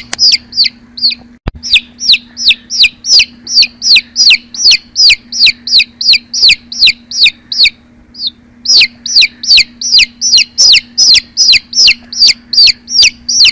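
Newly hatched chicks peeping loudly: a steady run of short, high, falling peeps, about three to four a second, with a pause of about a second partway through. A faint steady hum lies underneath.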